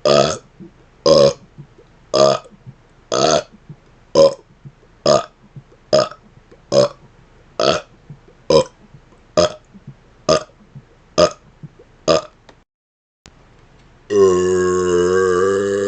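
A man burping in quick succession: about fourteen short belly burps, roughly one a second. After a brief pause, a long, drawn-out monster burp begins near the end.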